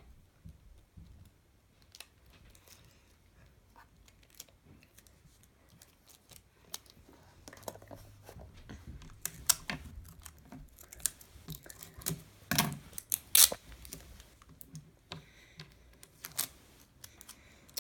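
Sellotape being pulled, torn and pressed onto wooden craft sticks: scattered clicks and crackles, thickest and loudest in the middle.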